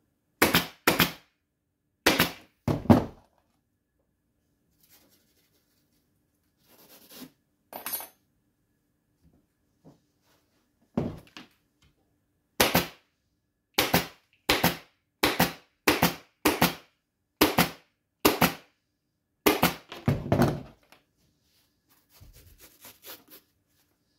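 Pneumatic upholstery staple gun firing staples through padding into a wooden frame: more than a dozen sharp shots, spread unevenly and often in quick pairs. Softer rustling of the padding is heard between them.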